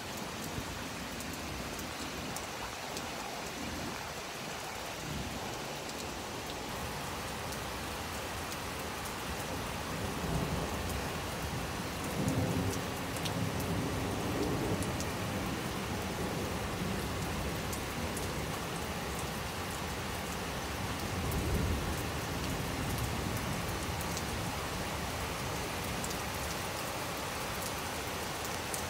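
Heavy rain falling steadily, with low rumbles of thunder rolling in several times: about ten seconds in, again a little later for a few seconds, and once more just past twenty seconds.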